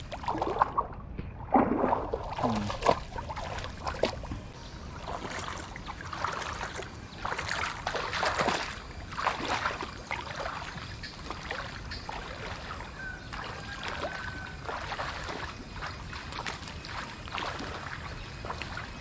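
Water sloshing and splashing in uneven strokes as someone wades through floodwater.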